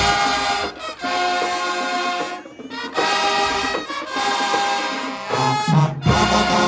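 High school marching band playing, its brass section sounding held chords in short phrases with brief breaks between them.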